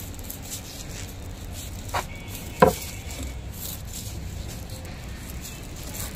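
Insulated AC copper pipe being pushed by hand down into a PVC conduit pipe: faint rubbing and scraping, with a light click about two seconds in and a sharp knock just after it.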